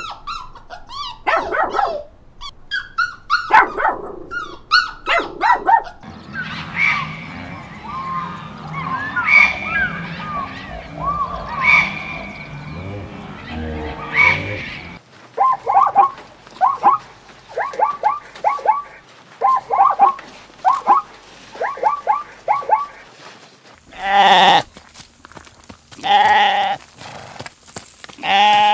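Small dogs yipping and whining for the first few seconds, then other animal calls, including quick repeated calls in short runs. Near the end a sheep bleats loudly about three times.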